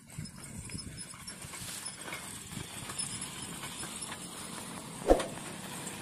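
Bullocks' hooves plodding on a dirt track as they pull a loaded cart, with the cart rattling along behind them. One sharp knock stands out about five seconds in.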